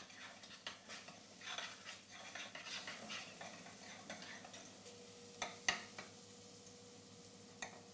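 Lardons frying gently in butter and shallot in a stainless saucepan: a faint sizzle with scattered small crackles, and two sharper clicks a little past halfway.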